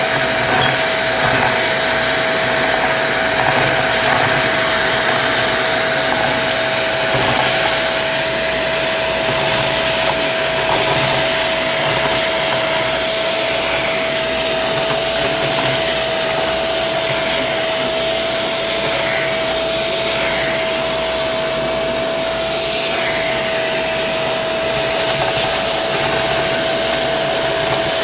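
Shark vacuum running steadily, with a steady whine over its suction rush, as its crevice tool sucks up sequins and confetti, the pieces crackling and rattling up the tube now and then.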